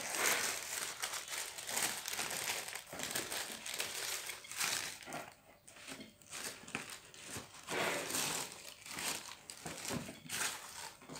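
Thin tissue paper crinkling and rustling in irregular bursts as it is pulled back and a pair of sandals is lifted out of it inside a cardboard shoebox, with a brief quieter lull about halfway through.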